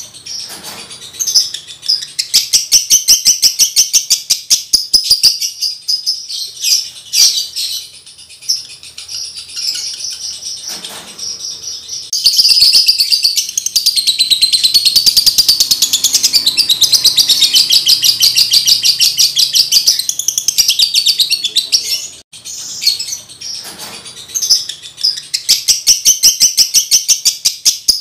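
Male lovebird in breeding condition chattering: fast, rattling trains of high chirps, unbroken from about twelve to twenty-one seconds in, with a quieter patch before and a brief break after.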